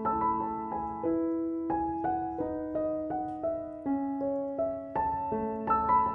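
Background music: a gentle piano melody of struck notes, each ringing on for a moment.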